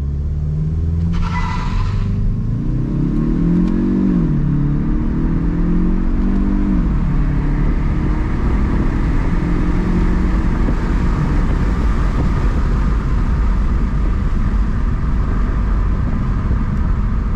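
Kia Stinger accelerating hard from a brake-held launch: engine revs climb, drop in pitch at an upshift about four seconds in, climb again and drop at another shift near seven seconds. After that comes a steady rush of engine, tyre and wind noise at speed, with a short burst of high-pitched noise a second or so into the launch.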